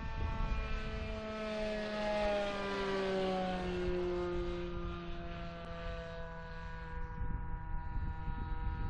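Seagull Boomerang RC trainer plane flying past, its motor and propeller making a droning note that is loudest a couple of seconds in and drops in pitch as it passes, then carries on steadier and fainter.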